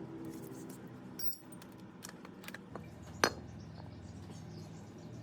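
Light metallic clinks and taps of small metal parts being handled, with one sharper click about three seconds in.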